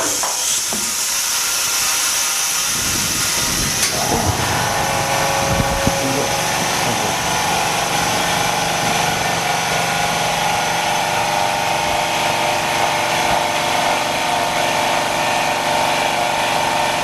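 Autoclave bubble-removal machine starting its cycle: compressed air hissing in as the chamber pressurizes, with a steady motor hum joining about four seconds in and running on.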